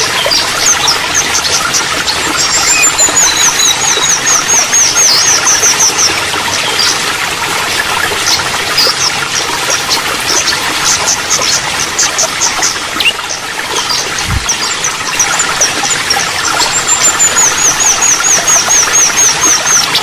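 Steady trickling, running water with small songbirds chirping over it, including two long runs of rapid, high, falling chirps typical of sunbirds. A brief low thump about 14 seconds in.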